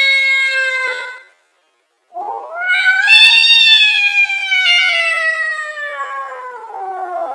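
Angry cat caterwauling: a held yowl cuts off about a second in, then after a short pause a long drawn-out yowl rises and slowly falls in pitch, and another begins near the end.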